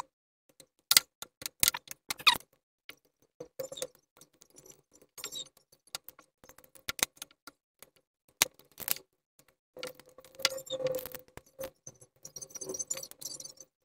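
Scattered clicks, taps and light rustling of hands handling and fitting plastic headlight parts, with a busier stretch of rustling near the end.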